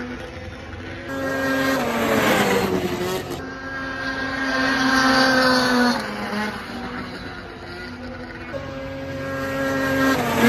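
Racing snowmobile engines running at high revs around an ice oval. The engine note falls sharply in pitch as a sled passes close about two seconds in and again near the end, with sleds farther around the track heard in between.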